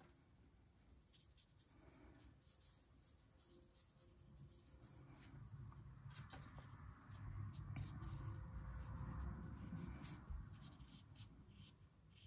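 Near silence with faint soft rubbing and light ticks from handling a paintbrush and paper, a little louder in the middle.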